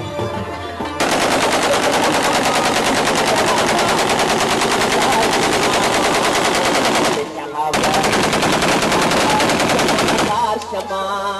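Rapid automatic gunfire in two long continuous bursts. The first runs about six seconds, and after a short break a second runs nearly three seconds. Folk music with drums is heard briefly before and after the firing.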